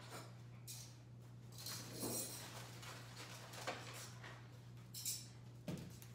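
Faint handling sounds: a few soft rustles and crinkles, the clearest near the end, as a plastic-wrapped charger plate is lifted from a crate. A steady low hum runs underneath.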